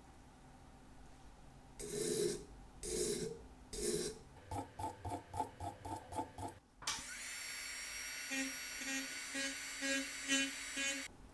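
A flat hand abrasive scraping across the end of a small steel watch part held in a pin vise: three slow strokes, then a quick run of about four strokes a second. About seven seconds in, a small high-speed rotary tool with a polishing tip starts with a steady high whine that pulses as the tip touches the part.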